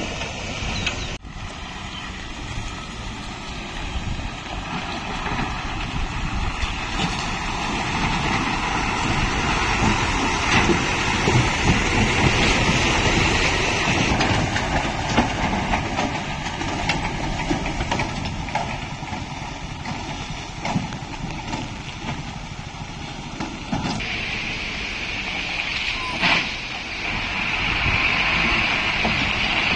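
Diesel lorry engines running at low speed as heavy trucks crawl through water-filled potholes, with a steady rumble and road noise.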